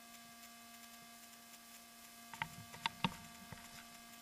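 Faint steady electrical hum, with a few light clicks and taps about halfway through, as the wearer moves along stony ground.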